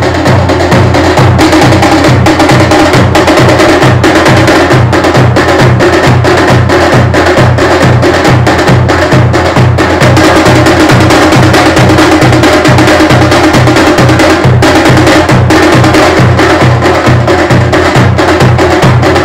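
Several large double-headed dhol drums beaten with sticks in a loud, steady, unbroken rhythm, the low drum strokes evenly spaced throughout.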